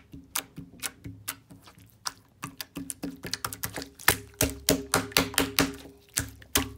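Hand pressing and squishing slime on a table, making a run of sharp, wet pops and clicks, a few a second, coming faster about four seconds in.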